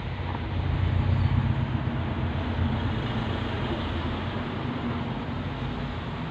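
A steady low hum and rumble that grows a little louder about a second in and then holds level.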